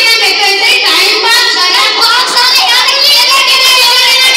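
A child singing loudly without a break.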